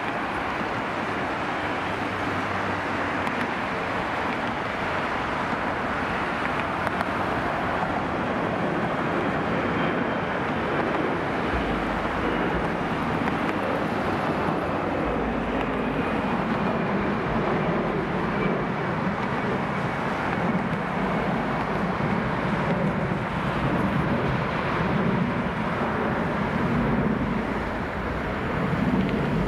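Jet engines of a Frontier Airbus A320 at takeoff power: a steady rushing jet noise as the airliner takes off and climbs away, with a faint high whine slowly falling in pitch midway.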